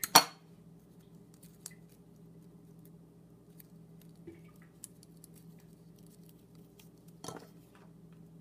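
A hot glue gun clacks down onto the countertop just after the start, then is picked up with another clack about seven seconds in, with a few faint ticks between as cardstock petals are handled. A faint steady low hum runs underneath.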